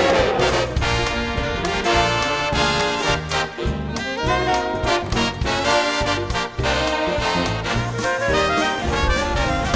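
Marching band playing a swinging tune: trumpets and trombones carry the melody over a steady drum beat.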